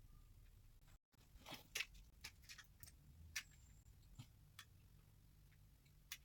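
Scattered light clicks and taps from handling wooden window trim pieces, the loudest a little under two seconds in, over faint room tone.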